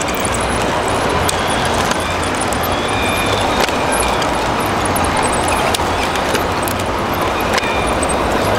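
Steady, even vehicle-like din of RC model machines running in a large hall, with a few short faint high tones and clicks over it.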